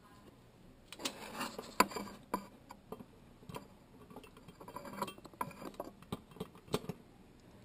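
Light metal clicks and scrapes as the U-clips holding the doorknob spindles of an antique Yale Mono Lock are pried off, irregular ticks over several seconds with one sharper click about two seconds in.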